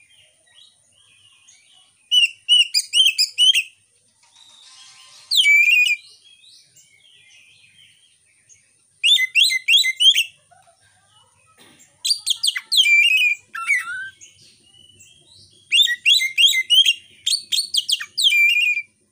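Oriental magpie-robin (kacer) singing: about five separate bursts of fast, high, whistled and chattering notes, each a second or two long, with short pauses between.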